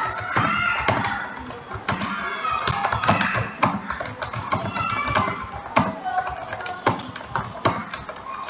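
Irregular taps on a computer keyboard, a few a second at most, over a voice talking in the background.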